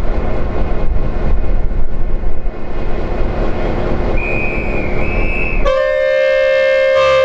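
Victorian Railways T class diesel locomotive rumbling at a standstill, then sounding its horn, a loud steady multi-note blast of about a second and a half, near the end. A thin high whistle sounds briefly just before the horn.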